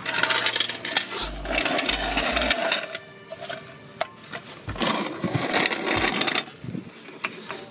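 Hydraulic floor jack being moved and worked into place on concrete, its metal rattling and clanking in two spells of about two seconds each, the second starting about five seconds in.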